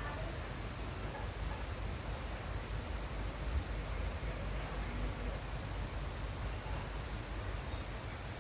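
Outdoor background of a steady low rumble, over which a small bird calls in quick runs of five or six short high chirps, about three times.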